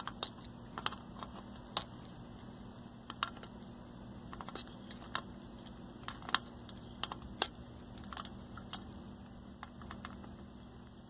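Small flush cutters snipping off the excess leads of newly soldered components on a circuit board: a string of sharp, separate clicks at irregular intervals, one cut at a time.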